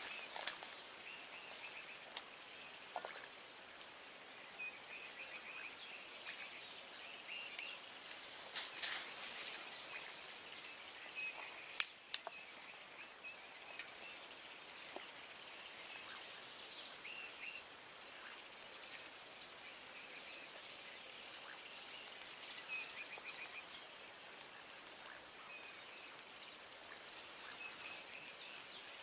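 Outdoor ambience of scattered bird chirps over a steady hiss, with rustling and small clicks of twigs and sticks being handled to lay a fire, and a single sharp crack about twelve seconds in.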